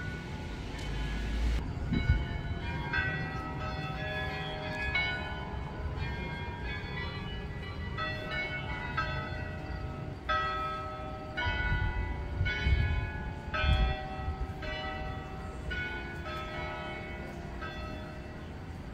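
Church bells ringing: several bells struck one after another, about once a second, each note ringing on. A few low thuds come through near the start and around the middle.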